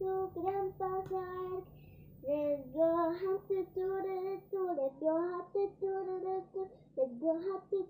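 A young girl singing a song in short held notes on a narrow range of pitches, with a brief pause about two seconds in.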